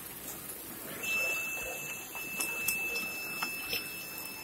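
Water poured from a glass into a pan of hot masala paste frying in oil, starting about a second in with a soft splashing hiss and a few small ticks. A thin steady high tone begins at the same moment and runs on.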